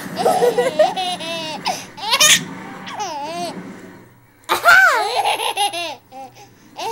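A baby laughing in high-pitched bursts, breaking off briefly about four seconds in and then laughing again.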